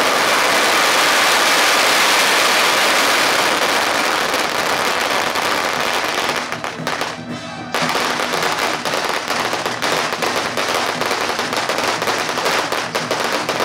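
A string of firecrackers going off: a dense, continuous crackle that drops off briefly about seven seconds in, then resumes as rapid sharp cracks, with music underneath.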